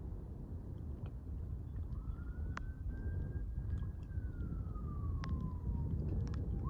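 Distant siren wailing: a single tone rises about two seconds in, holds, slides slowly down, and rises again near the end. Underneath is a steady low rumble of wind noise, with a few sharp clicks.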